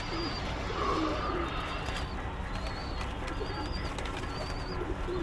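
Domestic pigeons cooing in low, wavering calls, with a faint high warbling note repeating about once a second.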